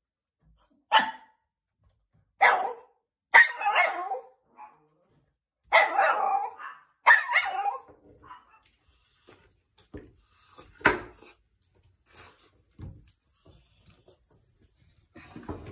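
A dog barking, about five loud, short barks in the first eight seconds, followed by scattered quieter knocks and clicks.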